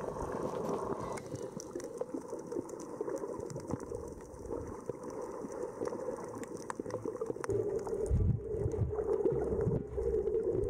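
Muffled underwater sound picked up by a camera held under the water while snorkeling: a steady low rush of water with scattered faint clicks and crackles. Heavier low thumps come in near the end.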